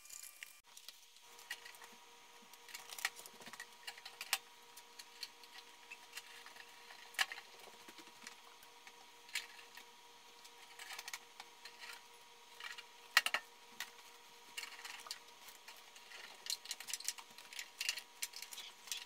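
Scattered light clicks and taps of a hand screwdriver and small screws on the cooktop's sheet-metal bottom cover as the screws are started loosely, with a brief cluster of sharper clicks about two thirds of the way through.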